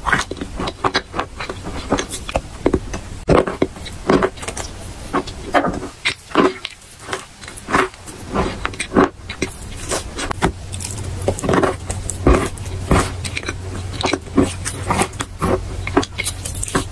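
Close-miked biting and chewing of white chalk coated in wet brown paste: a run of irregular crunches, one after another.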